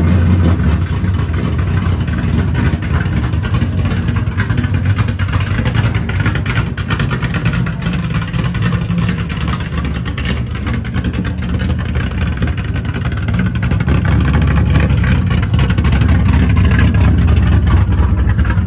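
Small-block 360 V8 car engine and exhaust running under way on a drive, growing louder about fourteen seconds in as it is given more throttle.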